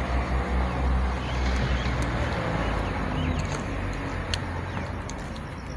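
Outdoor street noise: a steady low rumble of motor traffic under a noisy hiss, with a few faint bird chirps in the middle.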